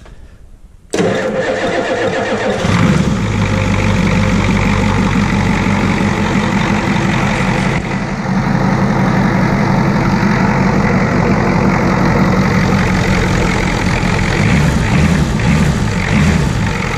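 International Harvester 6.9 litre IDI V8 diesel in a 1987 Ford F250 cranking over and firing about a second in, then settling into a steady idle within a couple of seconds. It is starting on a newly replaced lift pump with freshly purged injector lines.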